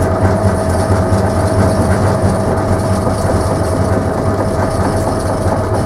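Home-built line-boring rig running: the belt-and-pulley drive turning the boring bar through the headstock bore, a steady whine over dense mechanical clatter.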